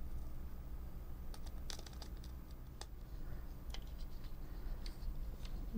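Light clicks and taps of a TOMY FlipBot's small plastic parts being handled and fitted together, scattered through the middle, over a steady low hum.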